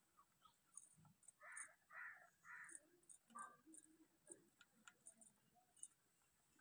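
Faint crow cawing three times in quick succession about a second and a half in, over light ticking of pigeons pecking grain from dirt.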